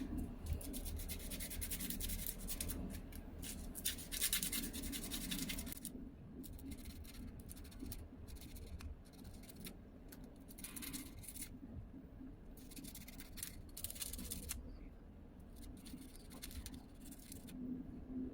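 Irregular bouts of scraping and rubbing with fine clicks, as of hands working a small part or tool. The bouts are longest and loudest in the first six seconds, then come shorter with pauses between.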